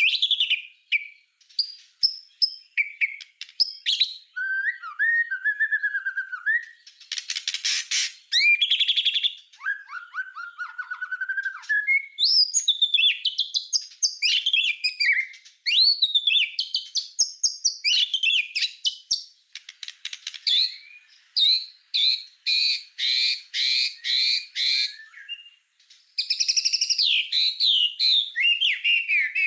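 White-rumped shama (murai batu) singing a long, varied song. Clear whistled phrases, some low and fluting, alternate with fast rattling trills. In the second half comes a run of sharp repeated 'shot' notes, about two a second.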